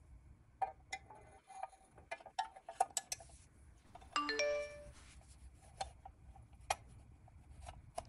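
Pressed-steel toy parts being handled and fitted together: light clicks and taps of the wire handle and tray against the bin. A little past the middle comes one brighter metal clink that rings briefly.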